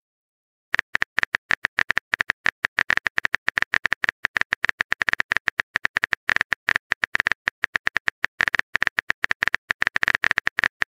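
Phone touchscreen keyboard typing sounds: a fast, uneven run of short key clicks, about ten a second, starting just under a second in.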